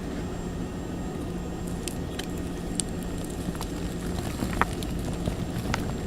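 Slime being handled close to the microphone: scattered small sticky clicks and crackles over a steady low hum.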